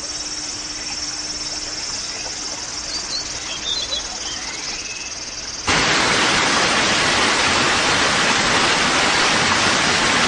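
Outdoor ambience of insects droning with a few short bird chirps; a little over halfway through it cuts suddenly to the loud, steady rush of fast-flowing mountain-stream water.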